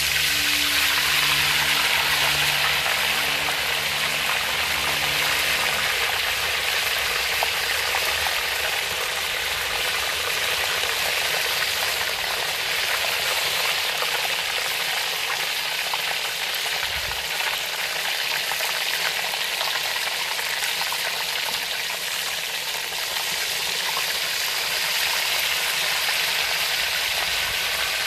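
Beer-battered cod fillet deep-frying in hot oil in a cast-iron Dutch oven: a steady, loud sizzle of bubbling oil, strongest in the first few seconds after the fillet goes in. Background guitar music stops about six seconds in.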